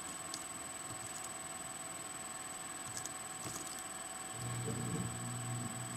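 A few faint, sparse keystrokes on a computer keyboard over a steady electrical background hum; about four and a half seconds in, a low steady hum with a pitch starts and holds for over a second.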